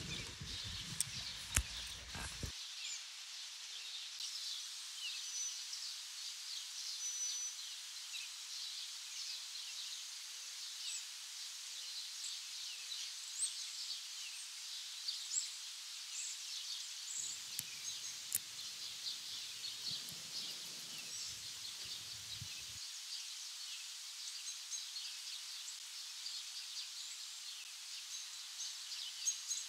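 Birds chirping steadily, many short high calls, with a couple of small clicks near the start and a low rumble for several seconds past the middle.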